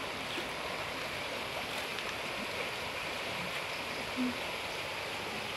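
Steady rushing of flowing floodwater, an even hiss with no break, with one brief short sound a little after four seconds in.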